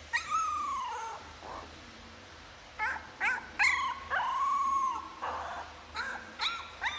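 A very young puppy whimpering and yipping: two drawn-out whines with a rise and fall, between runs of short high yelps.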